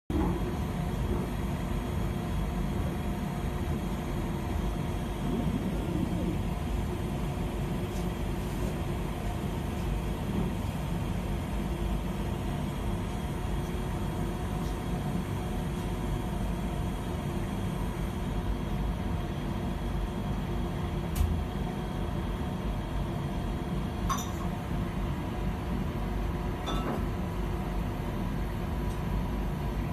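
An oligonucleotide (DNA/RNA) synthesizer running: a steady low machine hum with a few faint held tones, broken by a handful of short sharp clicks, the loudest about two-thirds of the way through.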